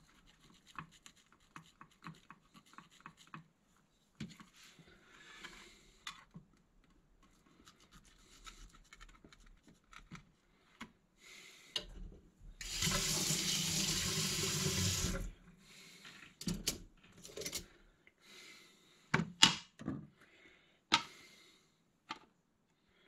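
A water tap runs into a sink for about two and a half seconds midway, a steady rush of water. Around it come scattered small knocks and clatter of handling at the sink, with a few sharper knocks near the end.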